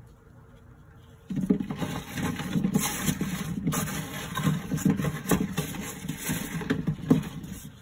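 Gloved hands rubbing and rolling a trayful of wet green ume plums in a stainless-steel tray: a dense rattling and scraping of fruit against fruit and metal, with many small knocks. It starts about a second in and stops just before the end.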